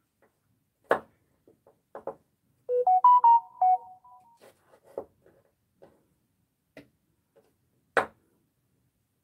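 A kitchen knife knocking on a wooden cutting board a few times as vegetables are sliced, with a short electronic jingle of a few stepped notes about three seconds in, the loudest sound.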